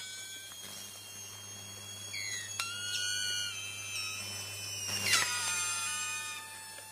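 Overhead power-line wire burning after a short circuit: a low steady electrical buzz under thin high whistling tones that jump in pitch in steps, with sharp cracks about two and a half and five seconds in.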